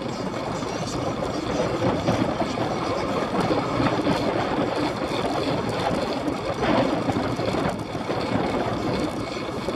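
Steady rush of wind buffeting the microphone of an action camera on a bicycle riding at about 20 mph, mixed with the bike's tyre and drivetrain noise.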